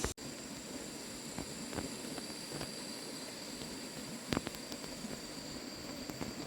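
Steady background hiss with a high, even tone, broken by scattered light clicks and a sharper knock about four seconds in. A brief gap in the sound right at the start marks an edit.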